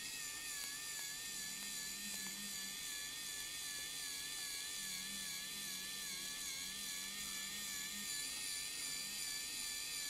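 Smarson 3D printing pen running, a steady high-pitched whine from its small electric motor as it pushes heated filament out of the tip. The pitch wobbles slightly and evenly throughout.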